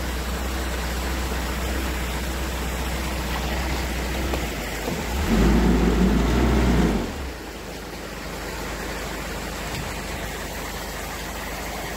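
Narrowboat's diesel engine running low and steady under a steady rushing hiss. It gets louder and deeper for about two seconds midway, then the engine hum drops away and the sound goes quieter.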